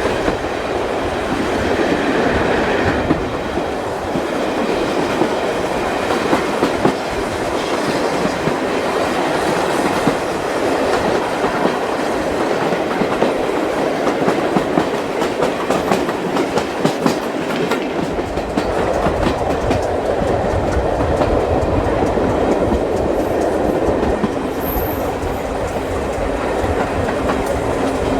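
Steam-hauled passenger train running along the track, heard from on board: a steady rumble with the clicking of wheels over rail joints. The low rumble deepens about eighteen seconds in.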